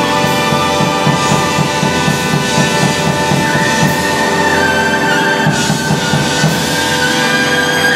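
Big band of saxophones, trombones and trumpets holding one long sustained chord while the drummer plays busy fills on the drum kit underneath: the closing chord of a swing arrangement.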